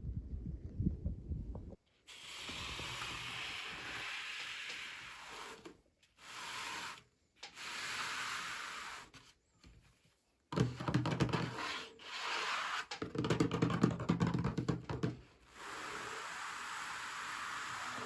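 Doll packaging being handled during an unboxing: rubbing and scraping in stretches of a couple of seconds with short pauses, and a stretch of crackling and clicks in the middle.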